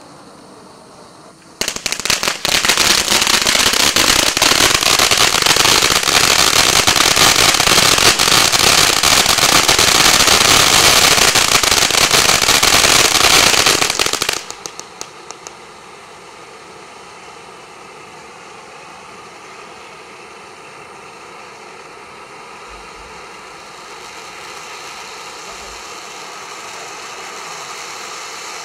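Ground firework fountain spraying sparks with a steady hiss. From about two seconds in, a dense, loud titanium crackling runs for about twelve seconds and stops abruptly. The fountain then goes on hissing as a fan-shaped silver spray, growing a little louder near the end.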